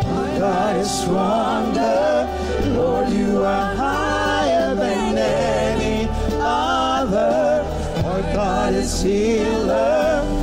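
A church praise team sings a gospel worship song, a male lead with female backing singers, over a live band with deep, sustained bass notes.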